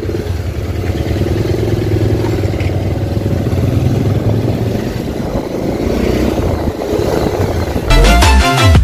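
Motorcycle engine running as the bike pulls away and rides along a road, steady with some rise and fall in level. Music cuts in near the end.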